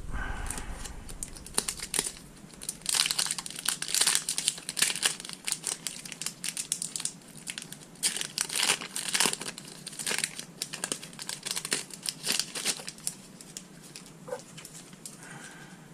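Foil wrapper of a Pokémon trading-card booster pack crinkling and tearing as it is opened and handled, in irregular crackly bursts that die down near the end.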